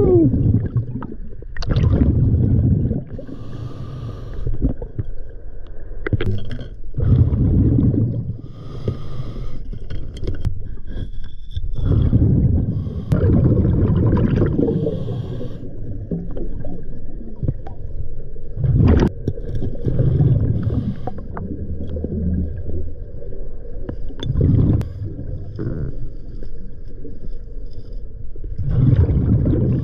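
Scuba diver breathing through a regulator, heard underwater: a hissing inhale alternating with a low bubbling burst of exhaled bubbles, repeating every few seconds.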